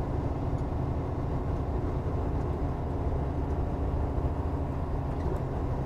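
Semi truck's diesel engine and tyre/road noise heard from inside the cab, a steady low drone as the rig rolls along at about 40 mph.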